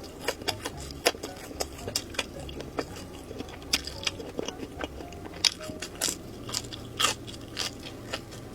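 A person biting into and chewing grilled sausages: irregular sharp crisp clicks and crunches, a few each second.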